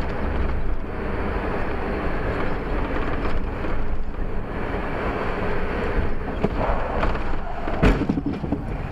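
Car interior heard through a dashcam while driving: steady road and wind noise, then a sharp bang of a collision with another car near the end.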